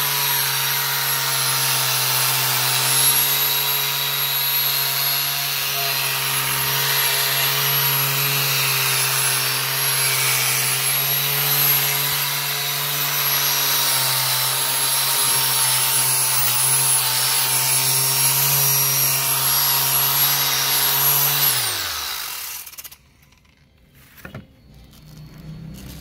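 Black+Decker angle grinder fitted with a homemade hook-and-loop sanding disc, running steadily while sanding a wooden board. About 22 seconds in it is switched off and its whine falls away as it winds down, followed by a few soft handling sounds.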